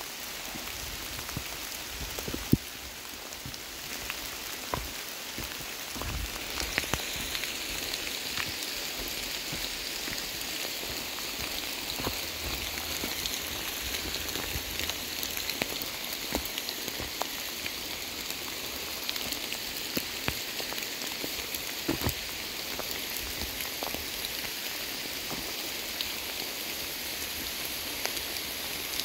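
Heavy rain pouring down steadily, with scattered sharp taps of drops striking close by, the loudest about two and a half seconds in. The rain picks up a little a few seconds in.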